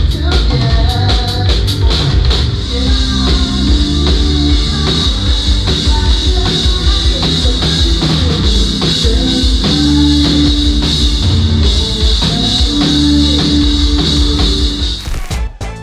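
Live rock band playing: drum kit and electric guitar over a steady beat. The music cuts off about a second before the end.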